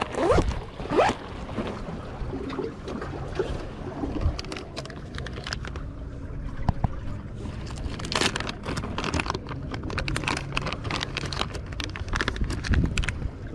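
Crinkling plastic bait bag and scissors snipping as bait is cut, heard as clusters of short clicks and rustles that are thickest in the second half, over a steady low rumble of wind.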